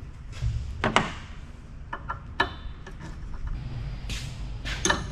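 Scattered sharp clicks and knocks from handling tools and metal parts. The loudest comes about a second in, a few lighter clicks follow around two seconds, and another cluster comes near the end.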